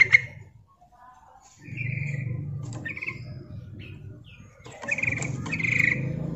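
Yellow-vented bulbul calling in short bubbly chirps: a brief pause, then single chirps about a second apart and a louder pair of chirps near the end, over a low rumble. The call is presented as a female calling to draw males.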